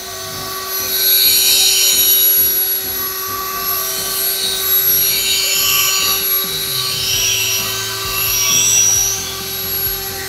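Electric drill spinning a polishing pad against a plastic headlight lens, compound-polishing it: a steady motor whine with a scrubbing hiss that rises and falls as the pad moves over the lens.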